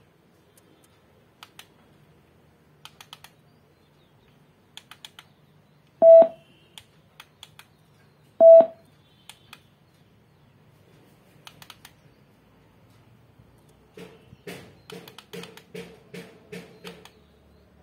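Plastic key clicks from a feature phone's keypad, scattered and then in a quick run of about three a second over the last few seconds. Two short, loud electronic beeps of one pitch come about 6 and 8.5 seconds in.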